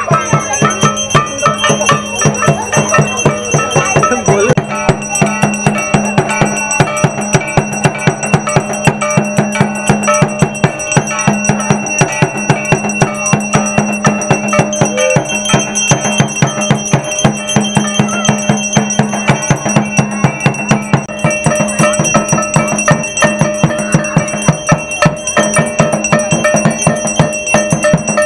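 Aarti music: a drum beating a fast, steady rhythm, with bells and jingling percussion ringing over it throughout.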